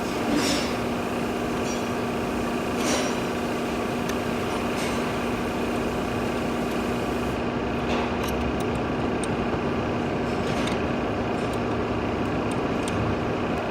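A steady mechanical hum made of many even, level tones, with a few faint clicks about half a second, three, eight and eleven seconds in.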